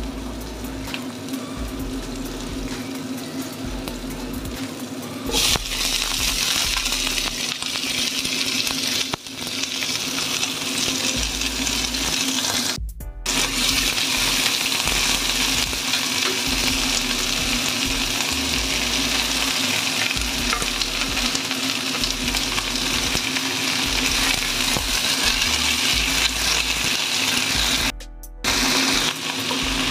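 Cabbage, carrot and onion sizzling in a non-stick pan as they are stir-fried with a wooden spatula; the sizzle grows louder about five seconds in. A steady hum runs beneath, and the sound cuts out briefly twice, about 13 seconds in and near the end.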